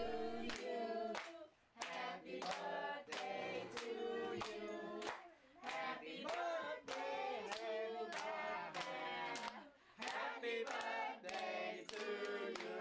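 A small group of family voices singing a birthday song together in four phrases, with hands clapping along in time about twice a second.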